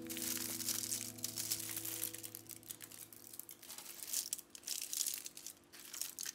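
Aluminium foil crinkling and crackling in irregular bursts as hands press and crimp it around a food parcel.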